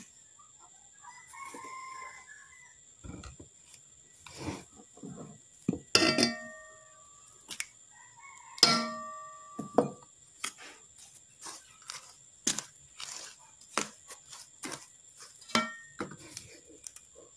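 A spoon and bowls knocking and clinking against a cooking pot as ingredients are tipped in and scraped out. There is a string of sharp knocks, and two louder clinks midway ring on briefly.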